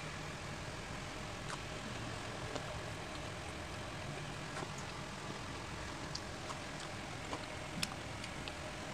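Steady low room hum with scattered faint clicks and crunches of a person eating crispy fried chicken by hand; one sharper click near the end.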